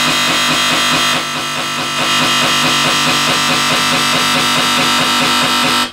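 Dubstep wobble bass patch from the Native Instruments Massive software synthesizer, a loud sustained distorted bass note whose tone pulses in a fast repeating wobble. It runs through Massive's tube distortion effect, whose dry/wet and drive settings are being adjusted.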